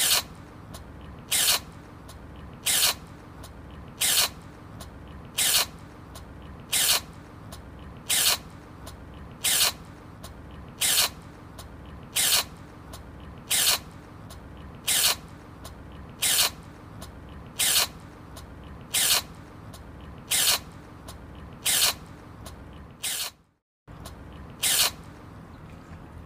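A small kitten sneezing over and over, one short sharp sneeze about every second and a half, repeated as a loop over a steady low background noise. The sound cuts out for a moment near the end.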